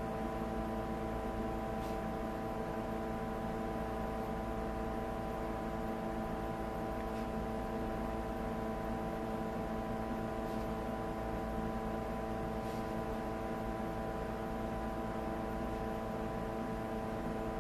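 Steady electrical hum made of several even tones, unchanging throughout, with a few faint ticks.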